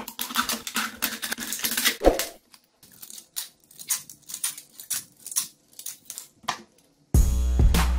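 Light clicks and small metallic taps from craft parts being handled and set down on a work surface. They come close together for the first two seconds, then scattered and fainter. Loud background music with a steady beat cuts in about seven seconds in.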